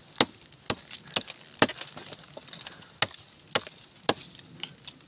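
Fox FX-611 Native fixed-blade knife, with a 17.5 cm blade, chopping into a dead log. About ten sharp strikes land at roughly two a second as the blade bites into the wood and sends chips flying.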